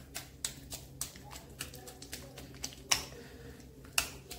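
Silicone spatula stirring and beating thick churro dough in a metal kadai: irregular light clicks and taps as the spatula knocks and scrapes against the pan, with two sharper knocks about three and four seconds in.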